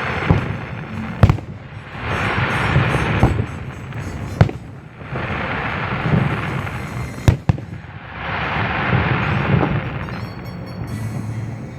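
Fireworks display: three sharp shell bursts about three seconds apart, each followed by a long swell of crackle from the breaking stars, with music playing faintly underneath.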